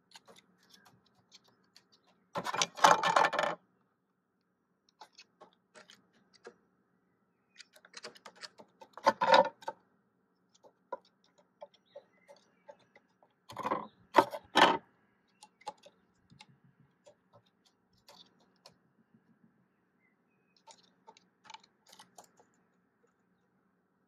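Hooded crow moving about a wooden puzzle toy on wooden decking: light scattered taps and clicks of claws and beak on wood. Three louder spells of knocking and scraping come near the start, about 9 seconds in and around 14 seconds in.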